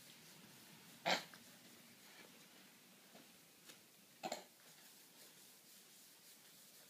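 Two short breathy vocal sounds from a toddler, about three seconds apart, over a quiet room.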